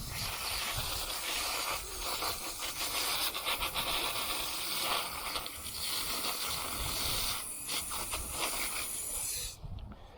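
Water hose spraying into a gutted trout's belly cavity to rinse it out: a steady hiss of spray with spattering, cutting off near the end.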